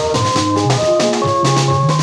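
Band music: a drum kit keeping a steady beat under a moving bass line and held melodic notes.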